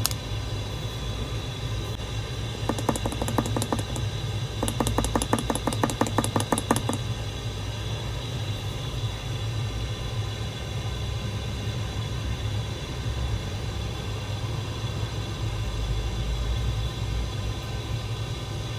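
Mechanical keyboard typed in two quick runs of clattering keystrokes, about three and five seconds in, over a steady low hum.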